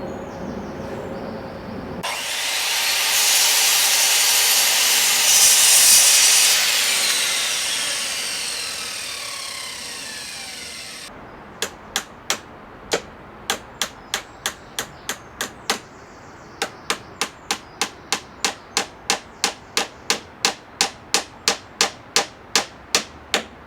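An electric power saw runs through a cut in wood and then winds down, its pitch sliding downward as it fades. Then a hammer drives nails into timber with a long, steady run of sharp blows that gradually quickens.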